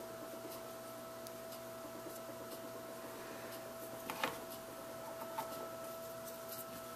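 Quiet handling of glued leather on a work table over a steady high-pitched hum: faint small ticks, then about four seconds in a short sharp tap as the leather welt strip is set down on the table, followed a second later by two softer taps.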